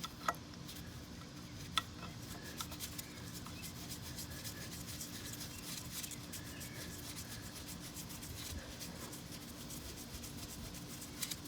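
Faint rubbing and rapid light metallic clicks as a power steering pump mounting bolt is fitted and turned in, with two sharper clicks in the first two seconds, over a steady low hum.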